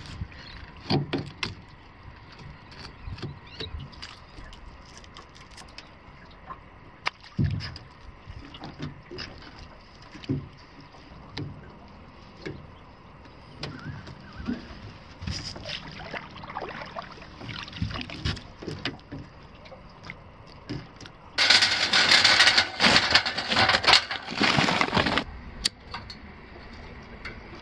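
A fish being filleted with a knife on the gunwale of an aluminium boat, making scattered light knocks and scrapes. About three quarters of the way through, a loud rushing noise lasts for about three and a half seconds.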